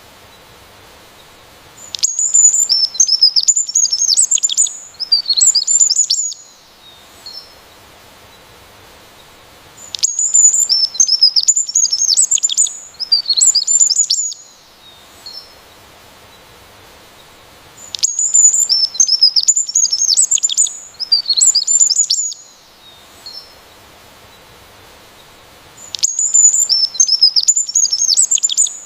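A songbird singing a rapid, high-pitched chirping song in phrases of about four seconds, the same phrase coming back every eight seconds, with quiet gaps between.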